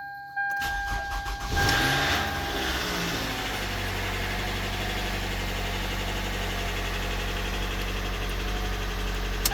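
A 2010 Toyota Camry engine with 197,000 miles cranks and catches about a second and a half in with a brief rev up and back down. It then idles steadily until it stops at the end. The pretty loud startup noise is put down by the mechanic to a worn timing chain that needs replacing.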